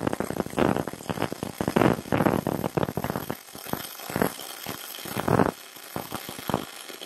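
MIG welding arc from a YesWelder MIG 250 Pro crackling as it lays a bead in the V-groove between two 10 mm steel plates. The crackle is dense for the first few seconds, then breaks into separate bursts with short gaps.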